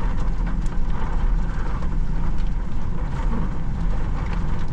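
Strong wind buffeting the microphone: a loud, steady low rumble that swells and dips with the gusts.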